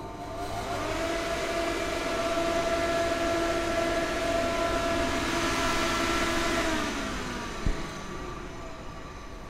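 Small electric motor spinning up, running at a steady whine for several seconds, then winding down, with a single click just after it stops.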